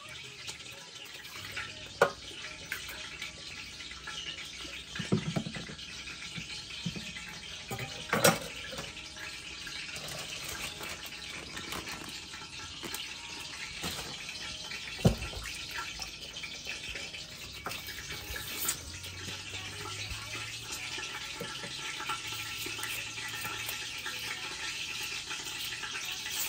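Vegetables being washed by hand in a plastic tub of water in a stainless-steel sink: water splashing and dripping, with three sharp knocks against the sink, over a steady hiss.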